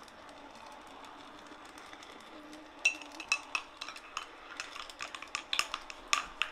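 Hot water poured from a kettle into a ceramic mug of cocoa powder, then a metal spoon stirring hot chocolate, clinking sharply and irregularly against the sides of the ceramic mugs from about three seconds in.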